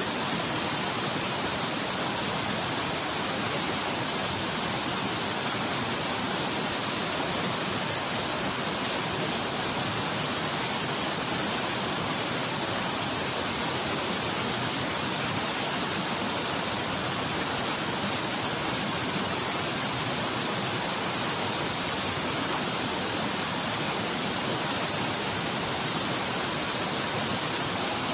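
Waterfall's falling water making a steady, loud rush of noise that does not change.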